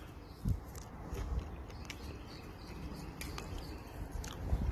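Leaves and twigs of a mulberry bush rustling, with scattered light clicks, as berries are picked by hand, over a low rumble on the microphone. A single low bump about half a second in.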